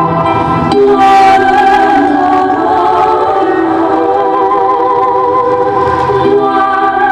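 Choral music: a choir singing long, sustained chords that change every second or two, swelling louder about a second in.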